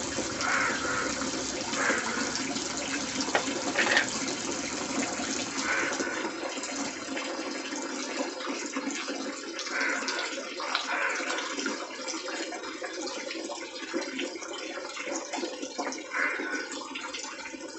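Water splashing and running during hand-washing of laundry: a cloth swished in a basin of soapy water and scrubbed with a bristle brush on wet concrete, with scattered brief scrubbing and splashing strokes.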